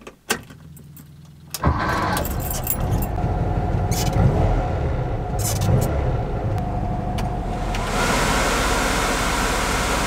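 Keys click in the ignition, then the 1967 VW bus's air-cooled flat-four engine cranks for about a second and catches, running steadily with a few clicks. Near the end a steady rush of air joins in as the newly installed air-conditioning blower is switched on.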